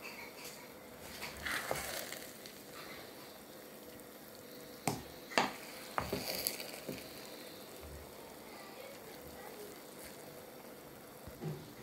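Jollof rice sizzling in its pot as it cooks and is stirred, with three sharp knocks on the pot near the middle.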